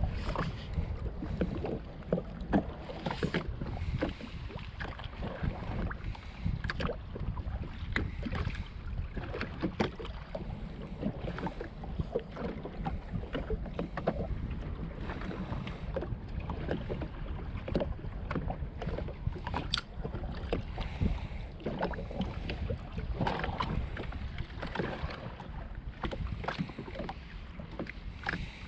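Small waves slapping and splashing irregularly against the hull of a Sea-Doo GTX jet ski, over a steady low rumble of wind on the microphone.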